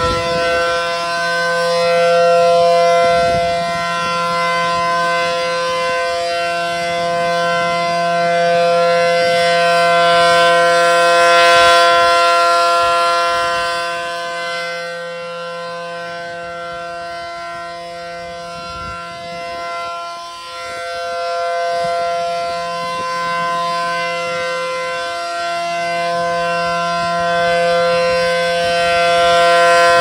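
ACA Allertor 125 rotating outdoor warning siren sounding a steady alert tone. It reaches full pitch as it opens, then holds one chord-like pitch, slowly swelling and fading in loudness as the horns turn.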